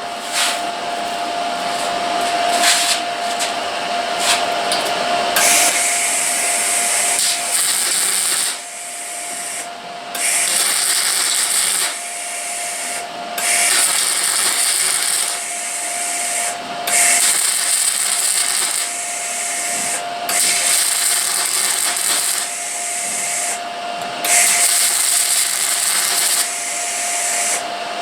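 Power tool working on metal: a steady whine under a hissing, rubbing noise that breaks off for a moment every two to four seconds, as the tool is lifted and set back on the work.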